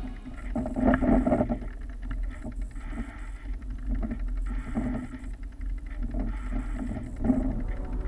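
A mountain bike rolling over a dirt trail, its rattles and knocks coming through a steady rumble of wind and movement noise on a bike-mounted action camera.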